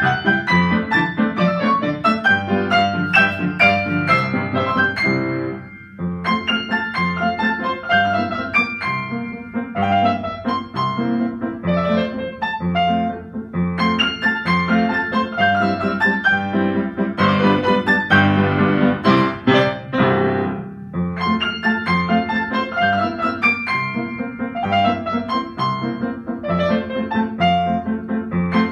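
Upright piano played four hands, a galop duet with busy chords and running notes. It pauses briefly about five and a half seconds in, and swells into a fuller, louder passage around two-thirds of the way through.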